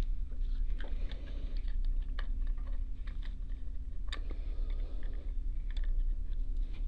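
Small, irregular clicks and taps of a precision screwdriver driving screws into the underside of a model locomotive tender's shell, with one sharper click about four seconds in, over a steady low hum.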